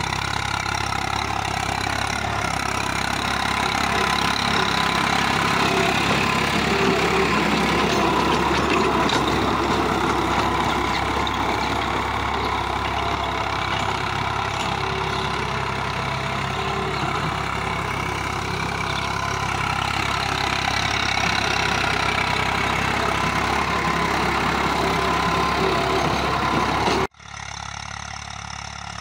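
Tractor diesel engine running steadily under load while it drives a rotary tiller through the soil. About 27 seconds in, the sound cuts off suddenly to a quieter, more distant tractor engine.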